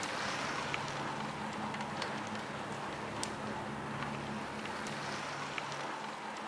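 Steady hiss of road and wind noise from a moving car, with a low engine hum underneath and a few faint scattered clicks.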